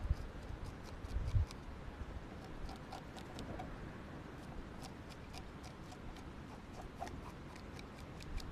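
A knife working on a fish on a cutting board: faint, irregular small scrapes and clicks. Low rumbles of wind on the microphone in the first second and a half.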